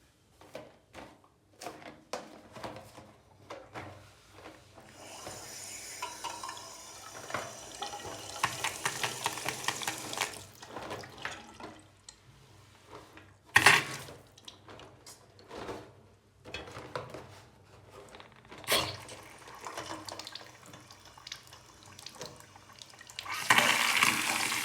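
Water tap running in two spells, about five seconds in and again near the end. Between them come scattered clicks and two sharp knocks of parts being handled at the tap.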